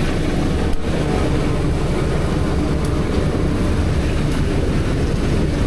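Steady rumble of motor-vehicle engines running close by.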